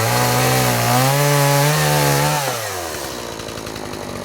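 Chainsaw revved up, held at high speed for about two seconds, then let back down to idle.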